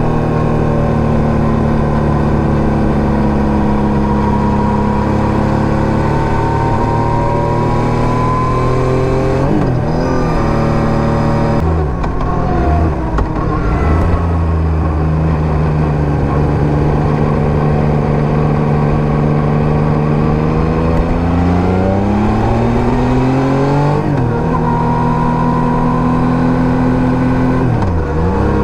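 Yamaha MT-09 third-generation 890 cc inline-three through an SC Project STR-1 exhaust, under way. The engine note sinks slowly, and breaks off and rises again several times as the rider rolls on and off the throttle and changes gear.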